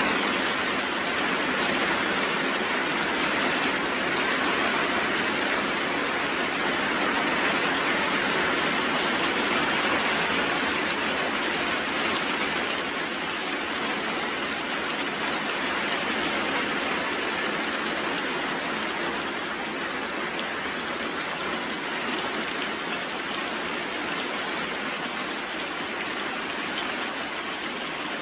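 Steady heavy rain falling, an even hiss with no breaks that eases slightly a little under halfway through.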